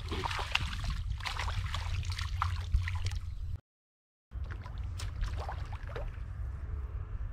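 Rustling and crackling as a nylon fishing net is handled in wet grass at a pond's edge, over a steady low wind rumble on the microphone. The sound drops out completely for under a second a little past halfway, then resumes with fainter rustles.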